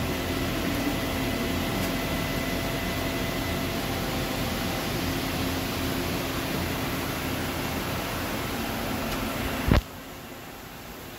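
CNC vertical turret lathe running with a steady mechanical hum and faint whine, a tone falling in pitch over the first second or so. About ten seconds in, one sharp knock, after which the machine noise is much quieter.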